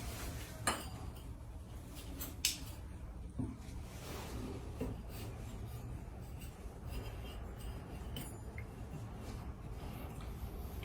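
Faint clinks and rubbing of metal plumbing parts as a shower arm is handled, with a few sharp clicks spread through the first half.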